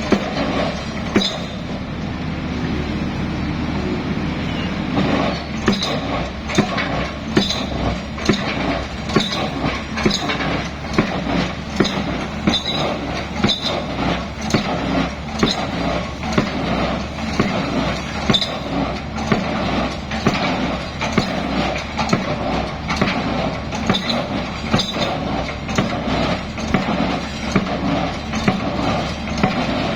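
Excavator's diesel engine running under a regular series of sharp knocks, a little more than one a second, which settle into a steady rhythm about five seconds in.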